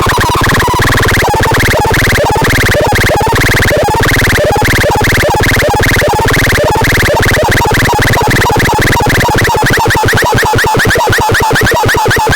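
Loud electronic synthesized sound: a harsh, buzzy drone under rapid repeating chirps and blips. About ten seconds in, the low part breaks into fast choppy pulses.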